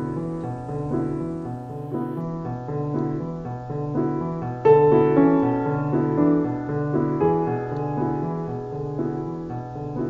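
Background piano music: keyboard notes in a steady repeating pattern, with a louder group of notes entering about halfway through.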